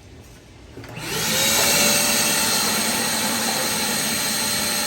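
Hart 6-gallon wet/dry shop vac switched on about a second in. Its motor spins up with a rising whine and then runs steadily with a rush of air.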